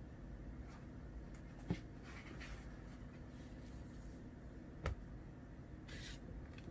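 Faint steady low background hum with two short, sharp taps about three seconds apart and a few brief light rustles.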